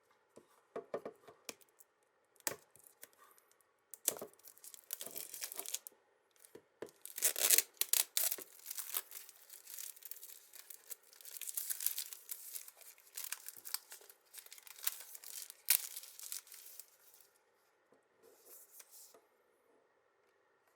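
Earphone packaging being torn and crinkled by hand: a few scattered clicks and rustles at first, then long stretches of tearing and crinkling from about four seconds in, fading to faint rustles near the end.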